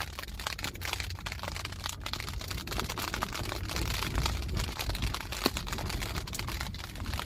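Rain pattering on tent fabric as dense, irregular ticking, over a steady low rumble of wind.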